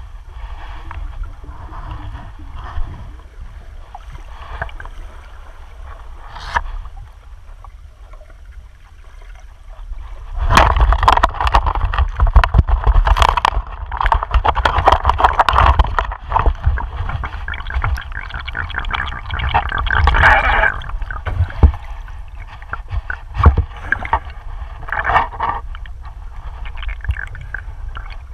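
Muffled underwater sound of a river, recorded through a camera housing: a steady low rumble. From about ten to twenty-one seconds in there is a louder stretch of bubbling, scraping and clicking as a landing net is worked over the stony bottom, with a few shorter flurries later.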